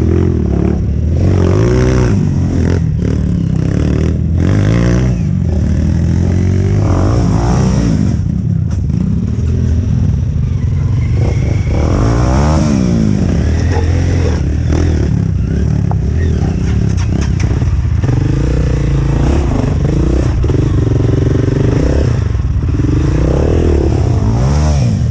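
Off-road dirt bike engine revving up and falling back over and over as it is ridden slowly over rough trail, with clattering and scraping of the bike.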